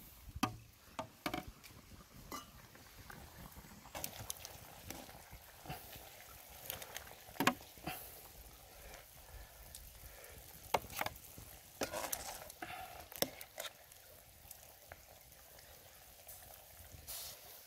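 Utensils handling boiled pig intestines in a metal wok of hot broth: irregular clinks and scrapes against the wok over a low, steady simmering hiss.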